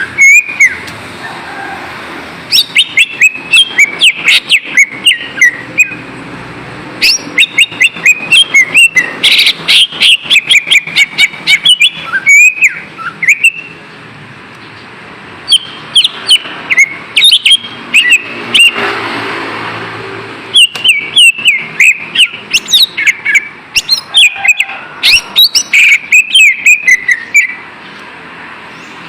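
Greater green leafbird (cucak ijo) singing: phrases of rapid, sharp chirps and quick whistled notes, broken by short pauses.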